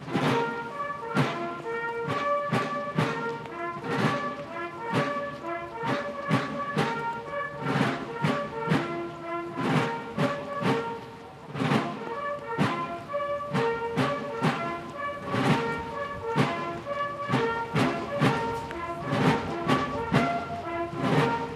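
Military brass band playing a march, with brass chords over a steady drumbeat about twice a second.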